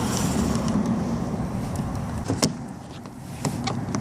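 A screwdriver prying at a car door's exterior handle and its retaining clips, giving a few sharp clicks and taps in the second half over a low steady rumble.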